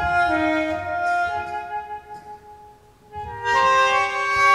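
Saenghwang, the Korean free-reed mouth organ, playing sustained chords of several notes at once. The sound thins and nearly dies away around two to three seconds in, then returns louder with a new chord.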